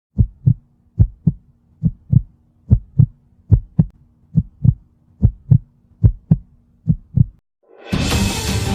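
Heartbeat sound: nine double thumps, lub-dub, at about seventy a minute, over a faint steady hum. The beats stop about seven seconds in, and music starts near the end.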